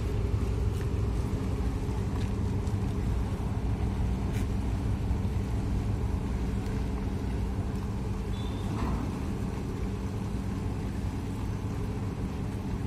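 Large ferry engines running steadily, a low hum with one level pitch, with a faint click about four seconds in and another near nine seconds.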